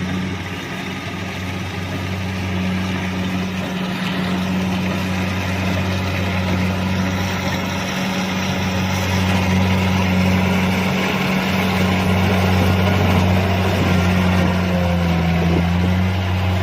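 Kubota DC-70 combine harvester's diesel engine running steadily with a low hum, over the rushing noise of its machinery, growing slightly louder; the pitch dips briefly near the end.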